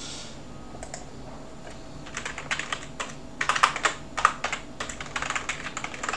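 Typing on a computer keyboard: a couple of single keystrokes about a second in, then a quick, uneven run of key clicks from about two seconds in.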